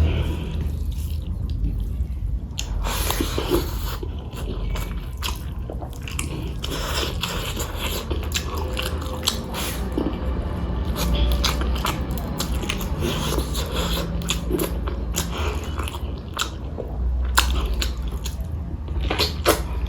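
A person chewing food close to the microphone, with many short crisp crunches and wet mouth sounds spread through the whole stretch.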